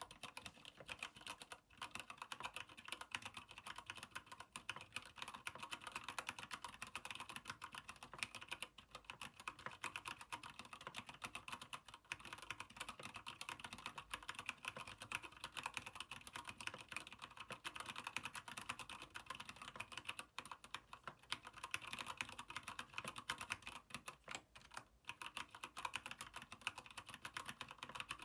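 Keychron K8 mechanical keyboard with Gateron Brown switches in an aluminium frame, typed on steadily: a fast, continuous stream of key clicks with a few short pauses.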